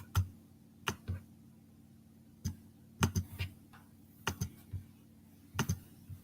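Computer keyboard keys being pressed irregularly, single keystrokes and short runs of two or three, with pauses between them.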